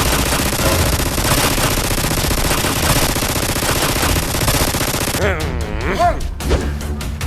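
Rapid automatic gunfire, an edited-in firing sound effect over music, that cuts off suddenly about five seconds in, leaving wavering pitched tones and a few clicks.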